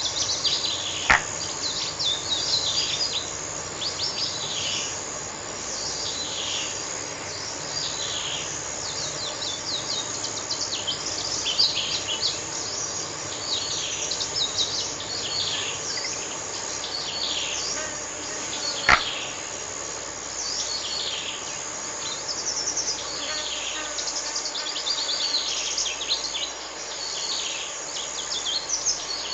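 Countryside bird chorus: many birds singing in short, repeated falling chirps and trills over a steady high insect drone. There are two sharp clicks, one about a second in and one about nineteen seconds in.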